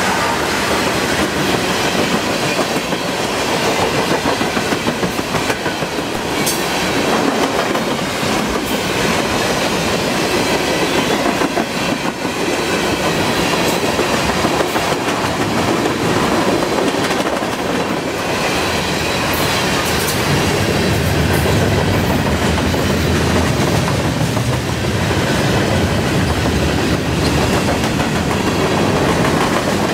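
Freight train cars (tank cars, then covered hoppers) rolling past close by: a steady rumble of steel wheels on rail with a clickety-clack over the rail joints, the low rumble growing deeper in the second half.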